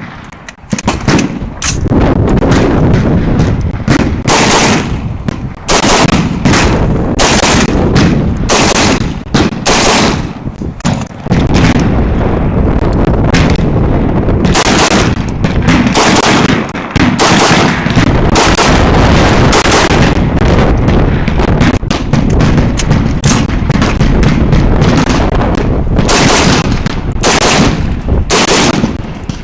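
AR-15 rifle fired again and again in quick pairs of shots, a double-tap drill, the loud reports coming about half a second apart within each pair, with a short pause about eleven seconds in.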